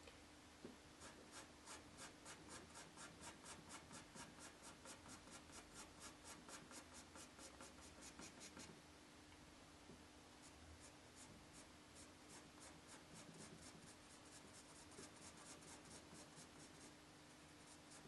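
Graphite pencil hatching on drawing paper: quick, rhythmic back-and-forth strokes, about four or five a second, faint. The strokes pause briefly about nine seconds in, then resume more softly.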